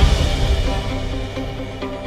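Intro music for a logo reveal: a swell builds into a deep low boom right at the start that slowly fades, and short, evenly spaced notes begin near the end.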